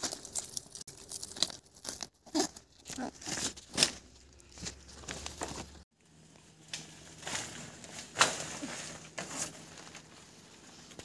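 Large broad leaves rustling, crackling and tearing as they are handled and bundled, then pulled from tall leafy plants, in irregular sharp crackles with a brief break about six seconds in.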